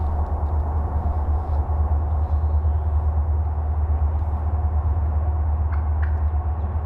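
Steady low rumble with no change in level.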